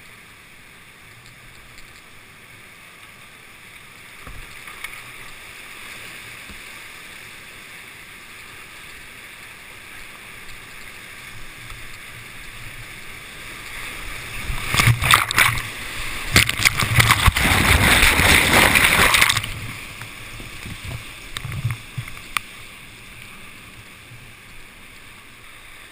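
Rushing whitewater of a class V rapid, heard from a kayak-mounted camera as a steady hiss of churning water. Past the middle, water crashes and splashes over the camera for about five seconds, much louder, then the steady rush returns.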